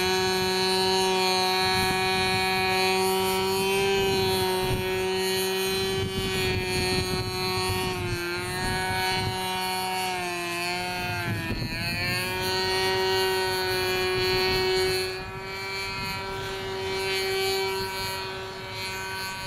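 OS Engines 55AX two-stroke glow engine of a U Can Do 46 aerobatic RC plane running in flight with a steady pitch. The pitch dips and recovers a few times around the middle. It gets quieter about three-quarters of the way through.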